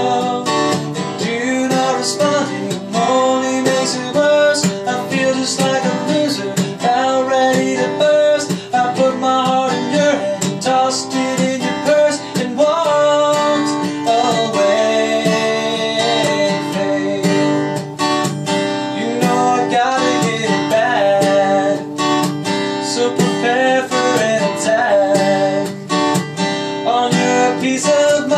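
Acoustic guitar played solo, strummed chords and picked notes running continuously with no lyrics sung.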